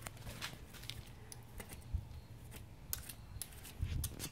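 Hoof pick scraping packed mud out of the sole of a shod pony's hoof: a string of small scrapes and clicks, with a couple of dull thumps.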